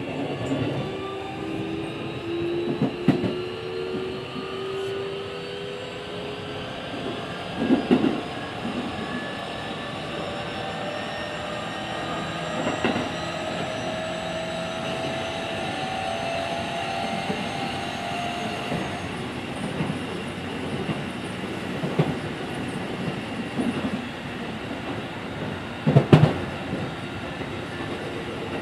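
Keikyu 1500-series electric train with a Mitsubishi VVVF inverter running, heard from inside the car: the inverter and traction-motor whine rises slowly in pitch as the train picks up speed, over steady wheel and rail noise. Several wheel clacks over rail joints, the loudest near the end.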